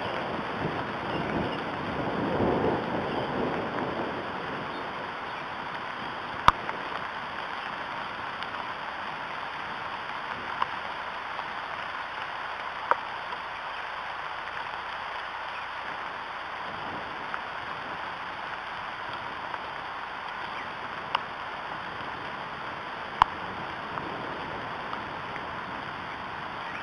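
Steady rain falling on the nest and the surrounding leaves, with a few sharp single taps of drips landing close to the microphone. The rain's hiss swells briefly about two seconds in.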